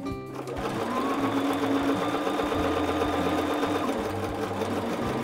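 Electric sewing machine stitching a seam through two layers of cotton fabric. It briefly stops right at the start, then runs steadily at a fast, even stitching rate.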